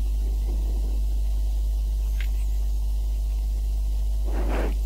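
Steady low electrical mains hum with a faint background hiss, picked up on the narrator's microphone line, with a brief rush of noise near the end.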